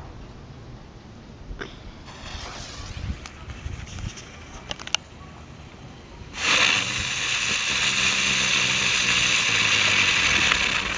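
A lit firework fizzing quietly with a few small crackles. About six seconds in, it suddenly bursts into a loud, steady hiss of spraying sparks.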